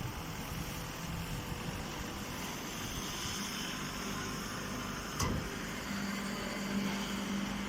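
Hydraulic press baler running with a steady mechanical hum. A single click comes a little past five seconds in, and a steadier low hum joins about six seconds in.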